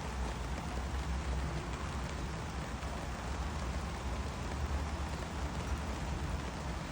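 Steady rain falling, an even hiss with no single drops or events standing out, over a low steady rumble.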